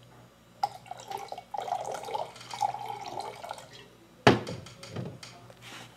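Liquid poured from a plastic bottle into a mug, running unevenly for about three seconds. It is followed, a little over four seconds in, by a sharp knock and a few lighter clicks.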